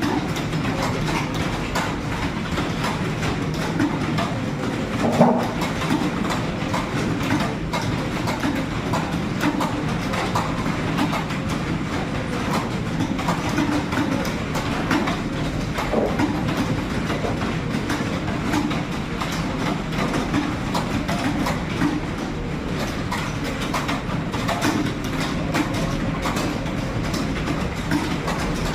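Computer keyboards being typed on fast and without a break, a dense, steady clatter of keystrokes during a typing speed test.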